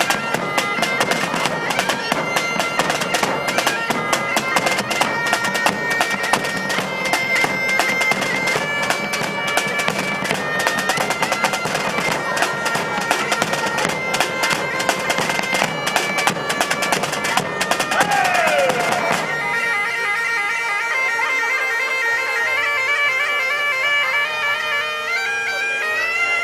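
Medieval-style bagpipes playing a tune over a steady drone, with rope-tension drums beating a driving rhythm. About 19 seconds in, the drumming stops and one pipe's pitch sags away as it runs out of air, while a lighter melody over the drone carries on.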